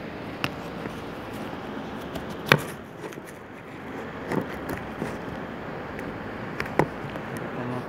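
Scattered sharp knocks and clicks, the loudest about two and a half seconds in, over steady room noise.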